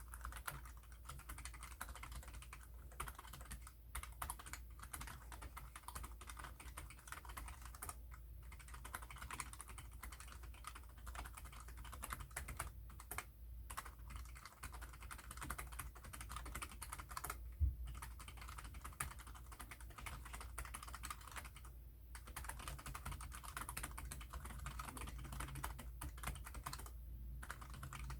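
Fast, continuous typing on a Keychron K3 low-profile mechanical keyboard covered with a keyskin: a dense patter of key clicks that stops briefly every few seconds. One louder knock about two-thirds of the way through.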